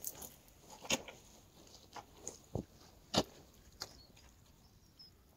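Footsteps on the grassy shore: about six short, sharp steps, irregularly spaced, each well under a second apart.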